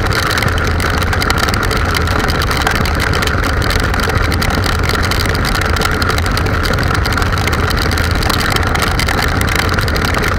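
Motorcycle cruising at steady highway speed on a wet road in rain: a constant rush of wind and tyre spray over a low engine hum.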